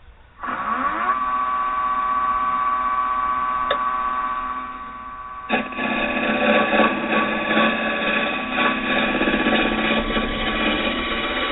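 Wood lathe motor starting up, its whine rising to a steady pitch within a second. About five seconds in, a carbide finisher tool with a round cutter begins cutting the spinning green oak, and a rough scraping noise runs on over the motor.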